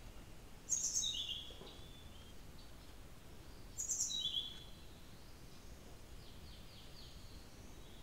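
Blue-throated flycatcher singing: two short phrases about three seconds apart, each opening with a sharp high note that drops to a run of lower whistled notes. Fainter, softer notes follow near the end, over a steady hiss.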